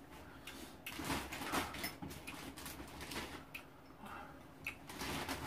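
Eating sounds: chewing and slurping, with scattered short clicks of a spoon and chopsticks against dishes.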